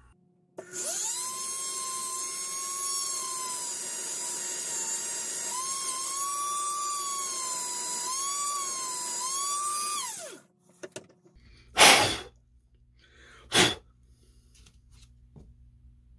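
Small high-speed rotary tool whining as it spins up about half a second in. Its pitch dips and wavers as it grinds, shaving back the head of a 5 mm LED, and it winds down after about ten seconds. Two sharp knocks follow, the first the louder.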